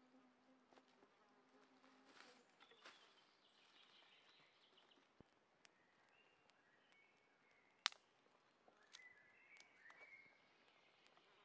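A fly buzzes steadily for the first couple of seconds. Then a small twig-and-kindling campfire crackles with scattered faint snaps and one sharp pop about two-thirds of the way through.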